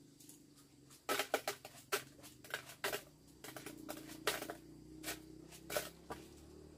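Irregular sharp taps and clicks from a small container being shaken and tapped over a glass jar to knock seasoning into it. They come in a quick cluster about a second in, then thin out to a few single taps.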